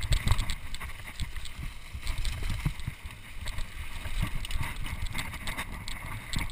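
Mountain bike ridden over a bumpy dirt trail: tyres rolling over dirt and leaf litter, with frequent quick clicks and rattles from the bike over bumps, and wind rumbling on the microphone.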